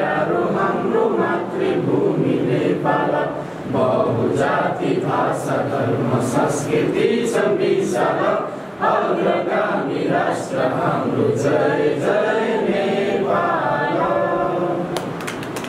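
A group of people singing or chanting together in unison, without instruments.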